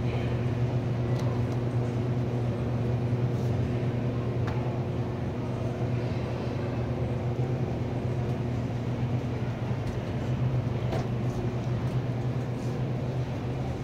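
Steady low hum and rumble of supermarket background noise, with a few short sharp clicks.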